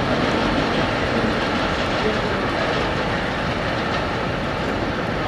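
New York City subway 2 train running on its track: a steady, even noise of wheels on rails with no marked changes.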